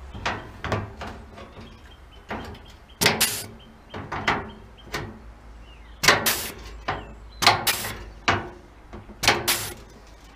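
Pneumatic hole punch punching plug-weld holes through the lip of a car's rear lamp panel, one sharp clack for each stroke. The strokes come irregularly, some in quick pairs a fraction of a second apart, about a dozen and a half in all.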